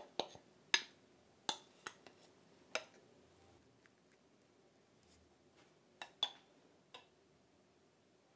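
A metal spoon clicking and clinking against small glass dessert cups as soaked fu pieces are spooned in. About six sharp clicks come in the first three seconds, then three more around six to seven seconds in.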